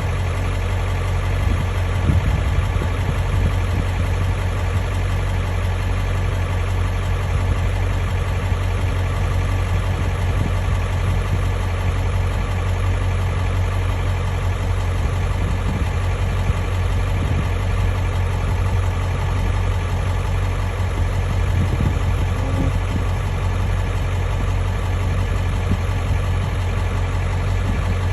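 Ford F-350 pickup engine idling steadily, with no change in speed.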